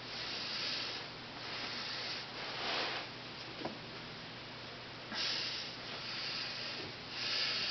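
Soft breathing close to the microphone: uneven hissing puffs of breath, with a brief click about three and a half seconds in.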